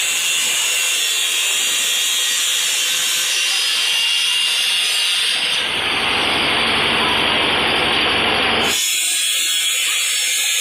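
Electric tile cutter (handheld disc cutter) running with a steady high whine. About halfway through there is a heavier grinding stretch of about three seconds as it cuts into tile, and this stops abruptly.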